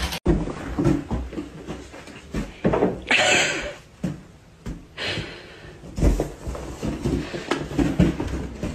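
A kitten chasing and batting a balloon across a carpeted floor: irregular soft thumps and bumps, with a louder hissy noise about three seconds in.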